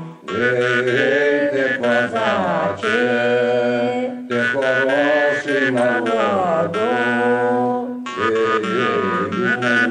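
Jew's harp (drymba) playing a folk tune: a steady low drone with the melody picked out in overtones that slide up and down. The playing breaks off briefly about four and eight seconds in.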